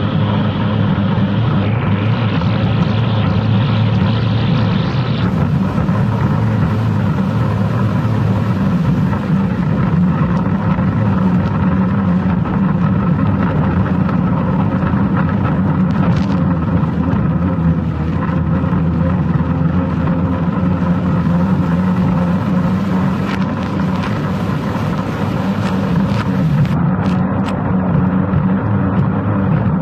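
F-2500 racing hydroplane's engine running flat out at steady high revs, heard from a camera mounted on the boat's deck, with hiss from wind and spray over it.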